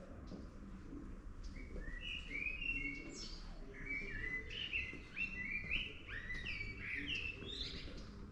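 A small songbird chirping a quick run of short, gliding notes. They start about a second and a half in and stop shortly before the end, over a steady low rumble.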